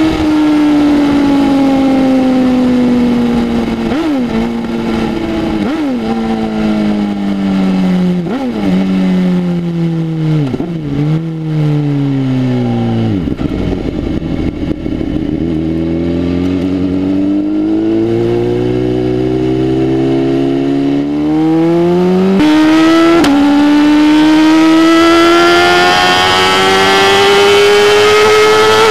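BMW S1000RR inline-four on a full exhaust system, heard from the rider's seat, engine braking as its pitch falls, with a short rev blip on each of about five downshifts. It settles low for a moment just before halfway, then pulls away again with the pitch rising, and a quick-shifter gear change about three quarters of the way through, after which it runs louder.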